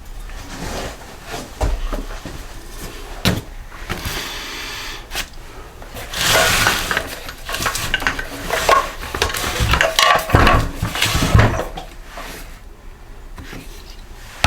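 Metal engine parts and hand tools clinking and clattering as a small engine is taken apart by hand. There are scattered sharp knocks, and two longer stretches of rattling about six and ten seconds in.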